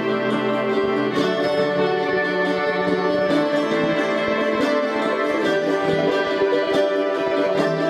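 Instrumental background music with sustained and plucked notes at an even level.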